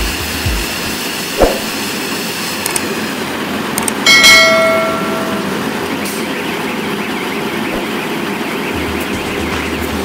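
Silage baler-wrapper running with a steady mechanical noise. About four seconds in, a loud metallic clang rings out and dies away over a second or so.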